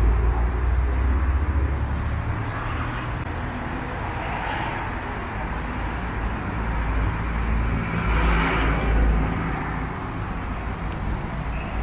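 Street traffic: cars passing one after another, two swelling and fading in a rush of tyre noise about four and eight seconds in, over a steady low rumble.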